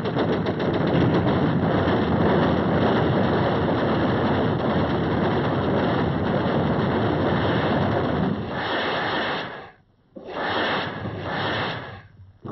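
Rapid machine-gun fire at the start, merging into a dense, steady roar of battle noise. Near the end the sound drops out briefly twice.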